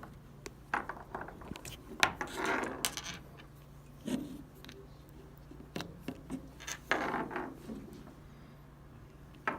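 Handling noise as a microphone and its 3.5 mm adapter are swapped and plugged into a GoPro: scattered clicks, taps and brief rubbing, over a faint steady hum.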